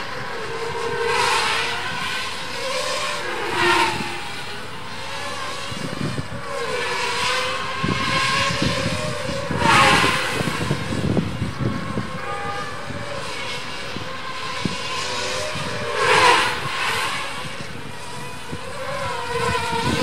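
Six brushless motors and propellers of a Foxtech Cicada FPV racing hexacopter whining in flight, the pitch rising and falling with the throttle. Loud swooshes come as it swoops past, about one, four, ten and sixteen seconds in.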